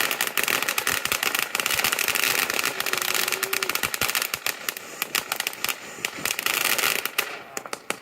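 Fireworks popping and crackling in a rapid, dense string of small bangs, easing off briefly near the end.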